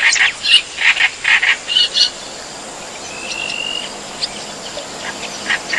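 Bird calls: a quick run of short, rough calls in the first two seconds, then a single thin, slightly rising whistle about three seconds in.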